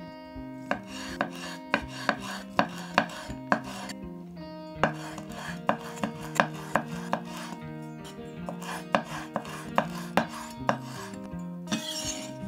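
Cleaver-style knife knocking on a wooden cutting board as Vienna sausages are sliced thin, in three quick runs of strokes. Near the end there is a brief scrape as the slices are swept together on the board.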